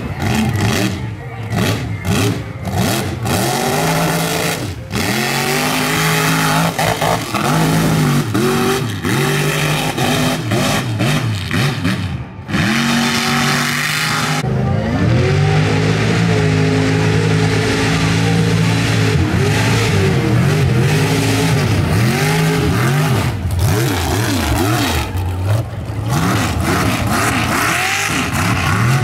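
High-horsepower mud bog truck engine revving hard under throttle, its pitch swinging up and down. It comes in short blips with brief breaks for the first few seconds. From about halfway it is held at high revs for a long stretch, and it rises and falls quickly again near the end.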